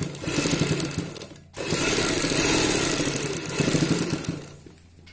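Sewing machine running fast, topstitching through layers of cloth. It runs, stops for a moment about a second and a half in, then runs again until near the end.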